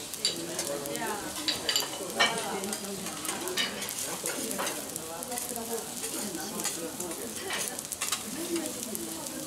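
Rice, garlic and diced wagyu frying on a teppanyaki steel griddle, a steady sizzle. A metal spatula and fork clink and scrape against the steel plate a few times as the food is stirred.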